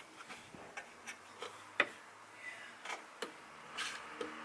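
Scattered sharp, light clicks and taps, about six over a few seconds, from hand tools and fittings being handled while the cabinet is being screwed in place.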